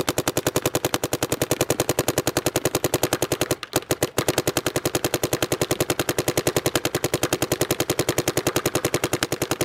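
Dye M2 MOS Air electronic paintball marker firing rapid strings of shots, about ten a second, in NXL mode. There is a short pause about three and a half seconds in before it fires on.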